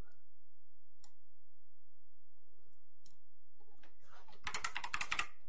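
A few separate mouse clicks, then a quick run of about ten computer keyboard keystrokes near the end.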